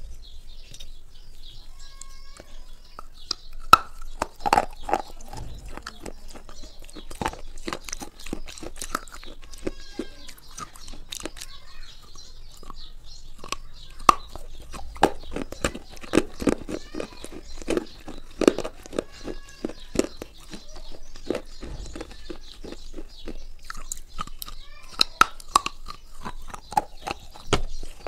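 A person biting and chewing crunchy food close to the microphone: a rapid run of sharp crackles and crunches, coming in louder bouts with each mouthful.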